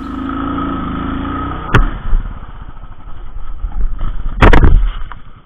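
Royal Enfield Thunderbird 500 single-cylinder engine running steadily. A sharp knock comes a little under two seconds in, and a cluster of loud knocks comes near the end.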